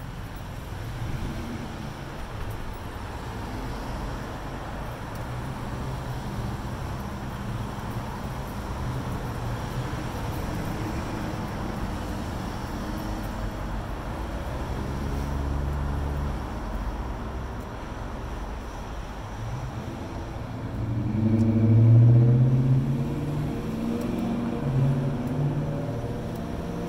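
Street traffic: cars driving past steadily on the road, with one louder vehicle's engine passing close about three-quarters of the way through.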